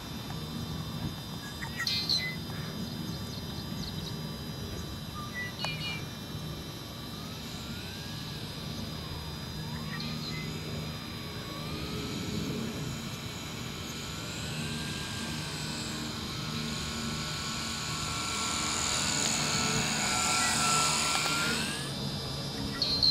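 Large electric RC model airplane's motor and propeller in flight, a whine that wavers up and down in pitch as the throttle and passes change. It builds to its loudest near the end, then stops abruptly.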